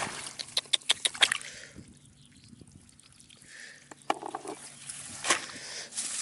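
Hands or feet working through wet mud and shallow water: a quick run of sharp wet squelches and splashes in the first second or so, a quieter stretch, then more squelching and one sharp splash about five seconds in.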